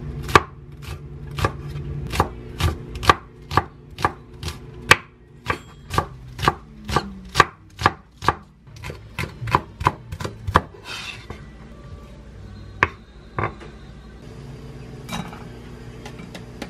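A chef's knife slicing Korean green onion (daepa) on a wooden cutting board: even knife strikes on the board at about three a second, stopping about ten seconds in, then a few single knocks. A steady low hum runs underneath.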